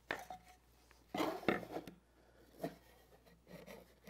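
Fir boards knocking and rubbing against each other and the wooden workbench as the glued end and side pieces of a dadoed box are fitted together: a few sudden knocks, the loudest cluster about a second in.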